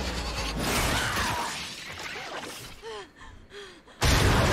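A person's voice making two short falling gasps, then a sudden loud burst of noise near the end.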